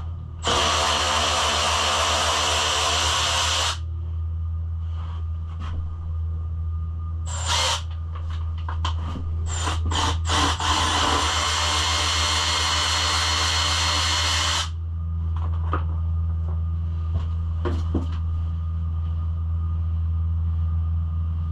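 Power drill running in two steady runs of a few seconds each, with a short burst between, backing out the bolts that hold the pit bike's old plastics.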